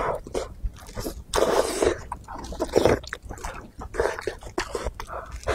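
Close-up eating sounds of a person biting and chewing spiced sheep's head meat: irregular bursts of chewing and biting with small clicks, the loudest burst about a second and a half in and another near the middle.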